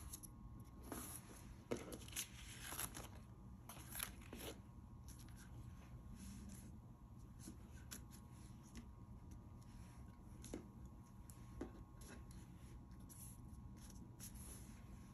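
Faint rustling and crinkling of paper being folded, slid and pressed flat by hand on a wooden table. A few sharper crinkles and taps fall in the first few seconds and fewer later, over a low steady hum.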